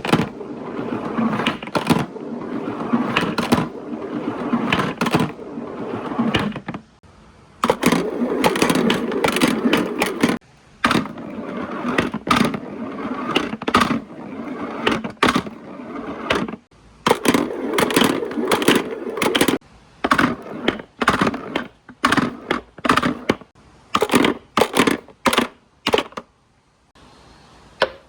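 Marbles rolling down a marble run: a steady rolling rumble broken by frequent sharp clacks as they drop onto and knock against the track pieces. The rolling stops shortly before the end.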